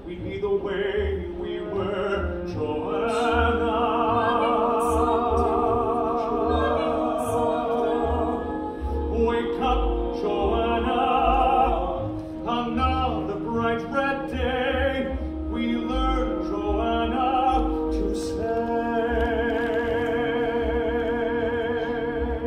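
Live musical-theatre singing with an orchestra in a theatre: a solo voice holding long notes with a marked vibrato over sustained chords.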